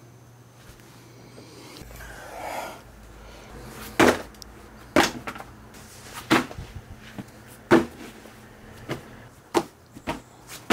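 A brief rustle, then a series of about seven sharp knocks and bumps at irregular intervals, as gear is handled and piled up for packing.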